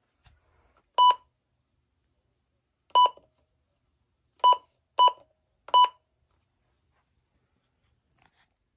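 Midland weather radio beeping five times as its buttons are pressed: short, identical key-press beeps, the first about a second in, the last three in quicker succession.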